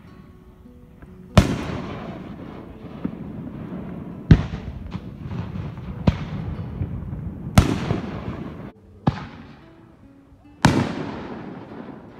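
Fireworks display: a series of about six loud booms a second or two apart, each sharp crack trailing off in a long echo.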